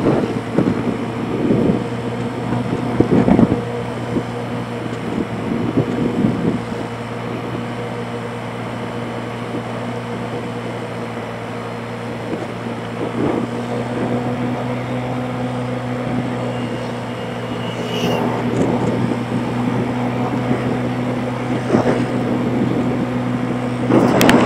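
Motorbike engine running steadily at cruising speed, heard from the bike itself, with wind rushing over the microphone. Short gusts or bumps break through every few seconds, the loudest near the end.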